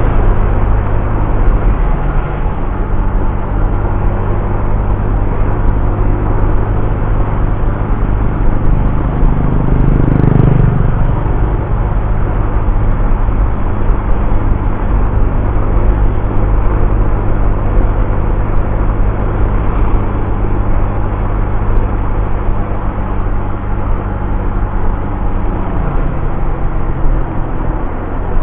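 Honda Vario scooter's single-cylinder engine running steadily at cruising speed, with road and wind noise. A louder swell comes about ten seconds in.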